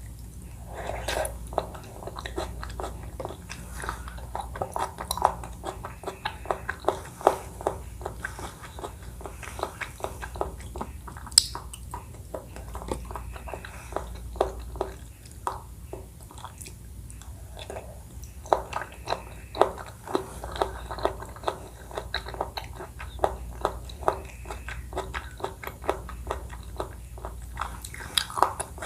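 Close-miked chewing of a Thai dessert in coconut milk: wet, irregular mouth clicks and smacks, several a second.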